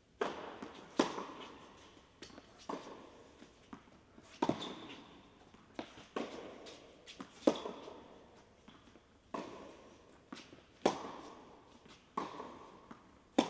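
Tennis balls struck by rackets in a rally: sharp pops every second or two, some louder and some fainter, each ringing on in the echo of an indoor tennis hall.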